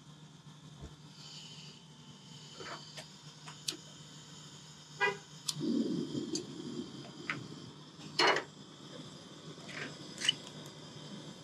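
Clicks and knocks of a propane camp stove and a lighter being worked, with a short rough rush of noise about halfway through as the burner is lit. A loud metallic clank with a short ring comes about three quarters of the way in, as a saucepan is set on the stove's metal grate.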